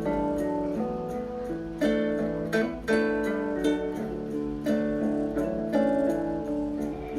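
Background music played on plucked strings, guitar-like, with chords held under picked notes.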